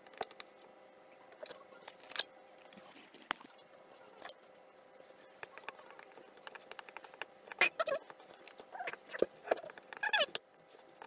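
A spoon stirring batter in a glass mixing bowl, with light clinks and scrapes against the glass. In the second half a dog gives a few short whines that fall in pitch, louder than the stirring.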